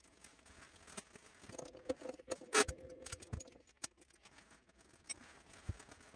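Scattered small metallic clicks and taps as tooling is changed by hand in a drill press's keyless chuck, the loudest about two and a half seconds in.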